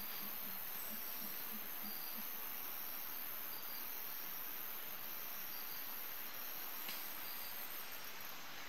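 Steady, high-pitched chorus of rainforest insects, a continuous hiss without breaks, with a faint single click about seven seconds in.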